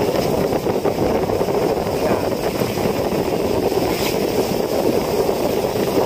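A fishing boat's engine running steadily at sea.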